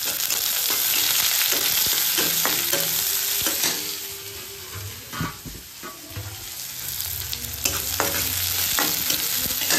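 Chopped onion sizzling in hot oil in a kadhai while a steel spatula stirs and scrapes it around the pan, frying the tempering of cumin, bay leaf and chillies. The sizzle eases off in the middle and picks up again near the end.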